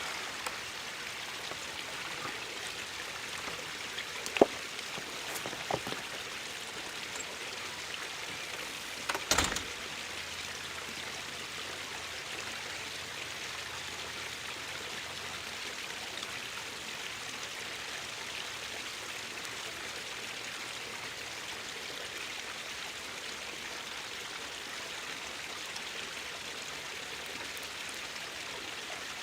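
Gasoline-soaked power inverter burning out after being hit with mains voltage: a steady hiss with a few sharp pops, one about four seconds in and a louder pair about nine seconds in.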